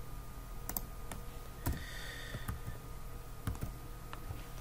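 A few scattered clicks of computer keys and a mouse, over a faint steady hum, with a brief soft hiss about two seconds in.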